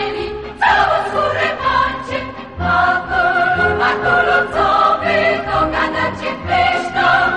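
Background music: a choir of voices singing a song, with several sung lines held over a low pulsing bass.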